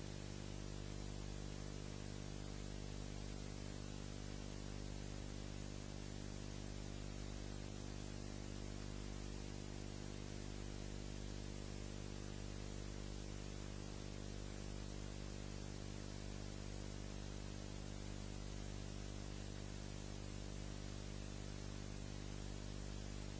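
Steady electrical mains hum with a stack of overtones and an even hiss, unchanging, with no other sound: a film clip that has no soundtrack of its own.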